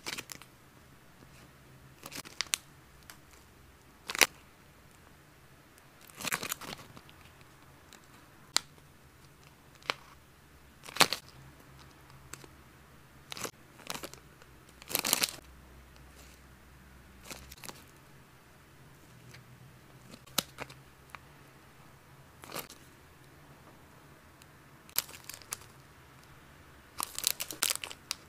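Plastic cat-snack packaging being handled and opened: short, crisp crinkles and tearing sounds a second or two apart, with a denser run of crinkling near the end.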